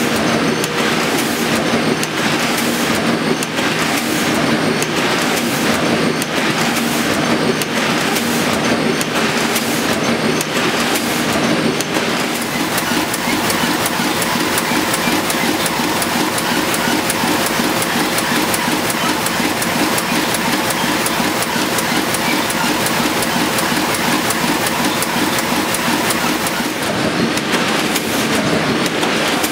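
Sheet-fed offset printing press running: a loud, steady mechanical clatter with a regular beat of about one a second, which turns into a quicker, denser clatter about twelve seconds in.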